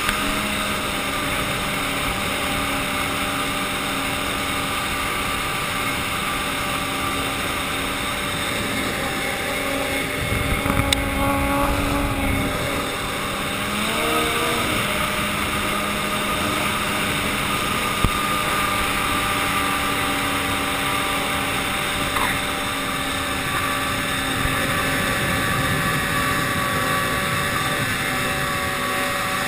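Ski-Doo snowmobile engine running steadily at cruising speed, its note holding level with a short waver in pitch about fourteen seconds in. A brief low rumble about ten seconds in.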